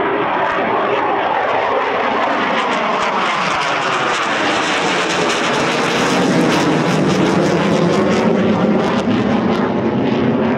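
Eurofighter Typhoon's twin EJ200 jet engines roaring as the fighter passes low overhead, loudest as it goes over, with a crackle through the middle of the pass.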